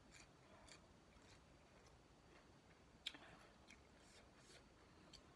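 Faint chewing of crisp cucumber slices, with scattered soft mouth clicks and one sharper click about three seconds in.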